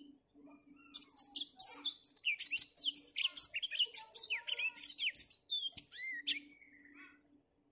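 Black-throated canary (blackthroat) singing a fast, twittering song of rapid high sweeping notes. The song starts about a second in and breaks off about a second before the end.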